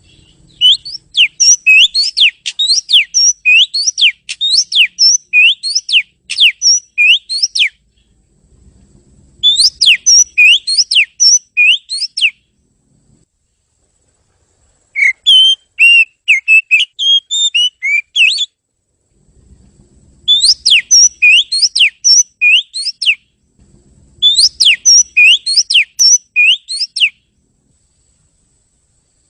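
Oriental magpie-robin (kacer) singing loudly: five phrases of a few seconds each, built from quick runs of rising whistled notes, with short pauses between them. The third phrase uses more varied notes.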